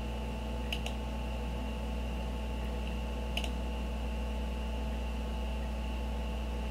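Computer mouse clicking, once about a second in and again after about three seconds, over a steady low electrical hum and hiss with a faint high whine.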